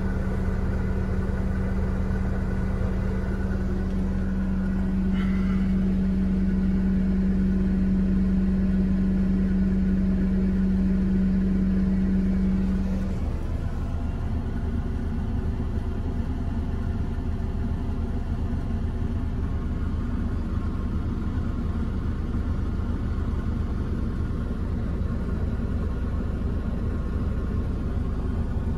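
Ravo 540 street sweeper running at a steady idle, heard inside the cab as a low drone. A steady hum sits over it and stops abruptly about halfway through, leaving the plain drone a little quieter.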